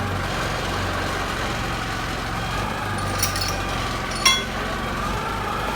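A forklift engine idling steadily, with two sharp metallic clinks, about three seconds and four seconds in.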